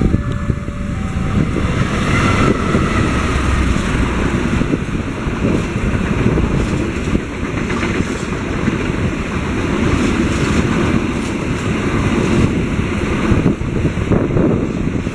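A passenger train of stainless steel coaches running past close by, a steady heavy rumble of wheels over the rails with wind buffeting the microphone. Level-crossing warning tones, switching between a few pitches, cut off about a second in.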